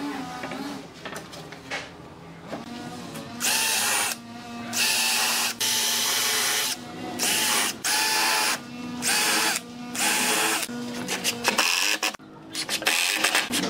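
A cordless drill drives screws into pine boards in a series of short whirring bursts, each under about a second with brief pauses between. Near the end a Makita impact driver takes over with a rapid clicking rattle as it seats a screw.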